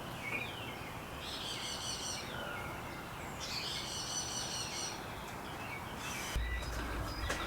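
Songbirds singing: short falling chirps, then two high trilling song phrases about a second and three and a half seconds in. Near the end a low rumble and a few sharp knocks.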